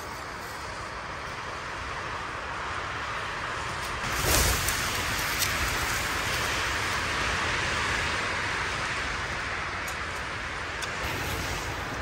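Blizzard wind and blowing snow against a Hilleberg Soulo tent, heard from inside as a steady rain-like hiss, with a louder surge about four seconds in.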